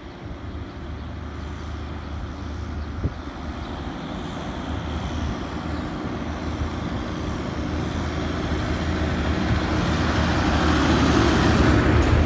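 Tractor pulling a large silage trailer, approaching with its engine growing steadily louder, then passing close by near the end in a swell of engine and tyre noise.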